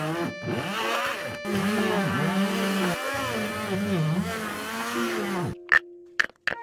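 Stick blender motor running in a plastic cup of strawberries and milk, its pitch rising and falling as it churns the fruit. It stops about five and a half seconds in, followed by a few sharp clicks of frozen blueberries dropping into the empty plastic cup.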